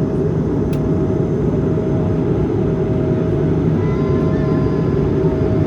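Jet airliner cabin noise aboard an Airbus A220-300: a steady, loud deep rumble of engines and airflow with a constant hum above it, and a few faint higher tones coming in about four seconds in.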